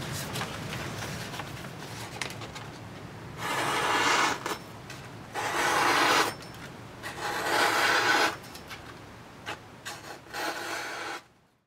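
Packing paper rustling and rubbing against cardboard as it is pulled out of a box, in four bursts of about a second each.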